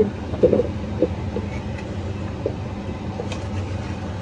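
A spoon scraping egusi paste out of a stainless steel pot and dropping lumps into a large pot of soup. A few soft knocks and scrapes come in the first half, and a sharp click about three seconds in, over a steady low hum.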